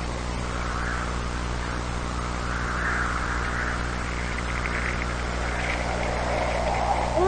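Night-time ambience of chirping insects, a trilling chorus that swells and fades about every second, over a steady low hum.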